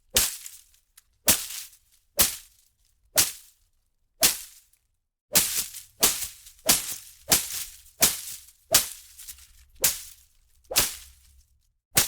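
Leaves and undergrowth being struck and whipped: a series of sharp swishing hits, each with a short rustling tail, about one a second at first and coming nearly twice a second in the middle.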